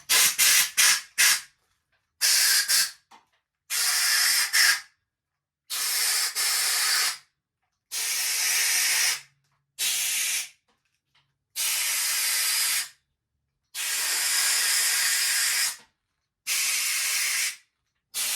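Compressed-air blowgun blowing coolant out of the head bolt holes of a Honda B-series engine block, in about ten separate blasts of hiss: a few quick puffs at first, then longer blasts of a second or two. The liquid is cleared so the head bolts cannot hydrolock and strip the block threads.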